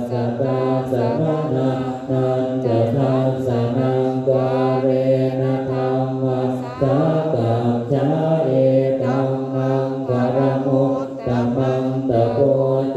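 Group of Thai Buddhist monks chanting Pali in unison, a steady recitation held on one low pitch, with short pauses for breath about seven and eleven seconds in.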